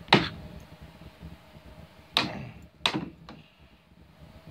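Three sharp smacks of someone swatting at a spider to kill it: one right at the start, a second about two seconds in and a third under a second later.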